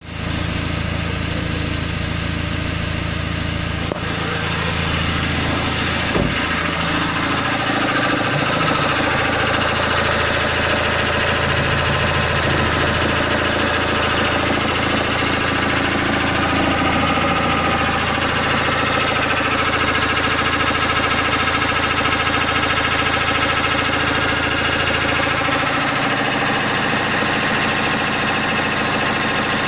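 Peugeot 406's 2.0 HDi DW10TD (RHY) four-cylinder common-rail turbodiesel idling steadily, a little louder once heard from the open engine bay.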